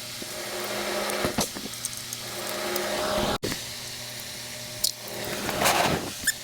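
Steady machine hum with scattered clinks and knocks of hand tools, and a short louder rushing noise near the end.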